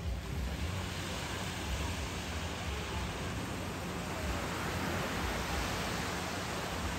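Steady rush of small waves washing onto a sandy beach, with wind on the microphone.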